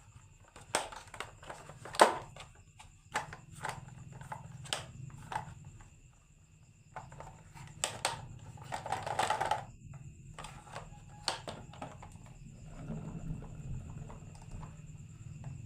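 Marbles clacking and rolling down a wooden marble run: irregular sharp clicks and knocks, with a longer rattling run about eight seconds in.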